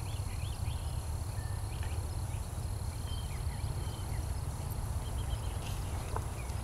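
Wind rumbling on the microphone, with small birds chirping now and then.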